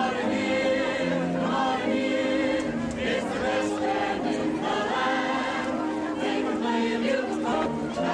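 Group of adult women and men singing a song together in chorus, holding long notes.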